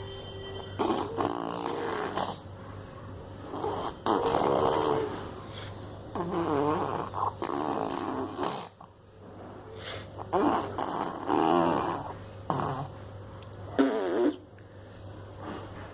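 A child making a funny noise with the voice, over and over in short bursts of about a second with wavering pitch, with pauses between them.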